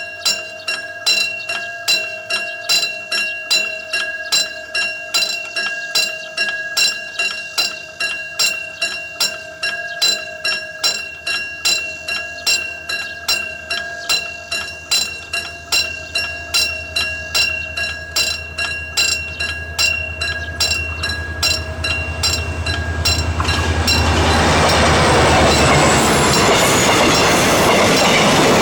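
Railway level-crossing warning bell ringing steadily, about two strikes a second. A train's rumble builds over it, and from about 23 seconds in the train passing over the crossing drowns out the bell.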